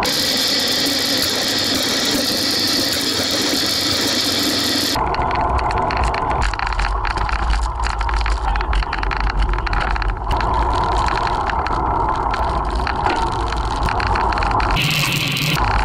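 Wind rushing over the microphone of a bicycle-mounted camera, with road noise and rattle from the moving bike. The sound changes abruptly about five seconds in and again near the end, where the footage is cut between rides.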